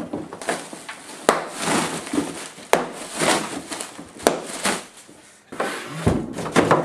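A cardboard shipping box being opened and plastic air-pillow packing rustling and crinkling as it is pulled out, with three sharp snaps. A low thump near the end as the box is moved.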